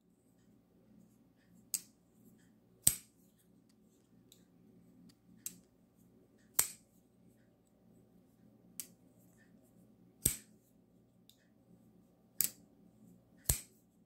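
QSP Canary folding knife being flicked open and snapped shut again and again, each action a sharp click of the blade locking open or closing. There are about eight clicks, several coming in pairs about a second apart.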